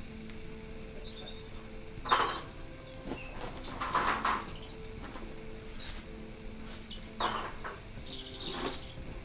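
Birds chirping a few times with quick falling calls, over scraping and knocking from stones and a trowel being handled during rubble-stone masonry work. A faint steady hum lies underneath.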